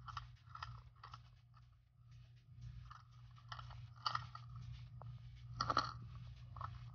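Sound heard underwater in a swimming pool: irregular crackling and clicking over a steady low hum, with the strongest clicks about four seconds in and again near six seconds.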